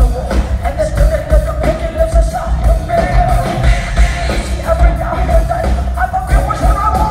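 Metal band playing live at full volume: electric guitars and heavy pounding drums under a held, wavering sung vocal line.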